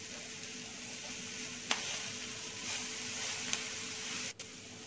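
Chopped onions sizzling steadily in oil in a nonstick frying pan, with two light knocks of the spatula against the pan as they are stirred.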